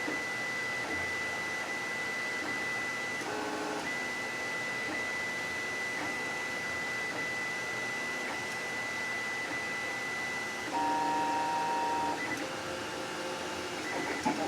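3D printer's stepper motors whining as it prints: a steady high tone that shifts to different tones about three seconds in and again, a little louder, near eleven seconds as the moves change.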